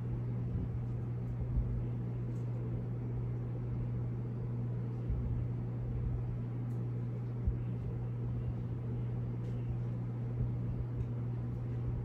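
Steady low droning hum, with a few short, soft low thumps scattered through it.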